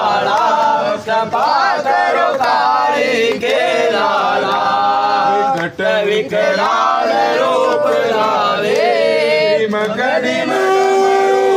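Voices singing a devotional bhajan to Bhairav together, with a long held note near the end.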